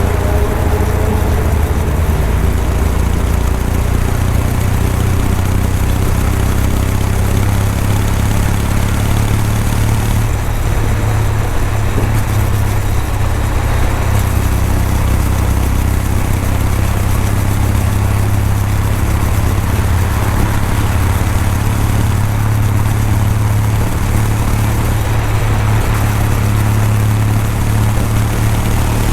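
Kawasaki W800 motorcycle's air-cooled parallel-twin engine heard through its exhaust while riding at a steady speed. It gives a low, even note, with little change in revs.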